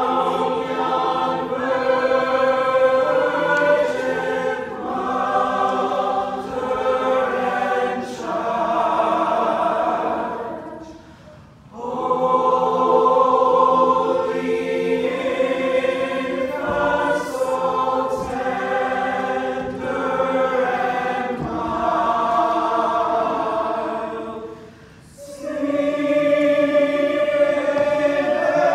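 Mixed choir of men's and women's voices singing together in harmony, holding long chords, with two short breaks between phrases about eleven and twenty-five seconds in.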